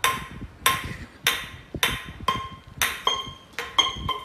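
A rat knocking a small metal can against a concrete floor: a series of sharp metallic clanks, about every half second, each ringing briefly.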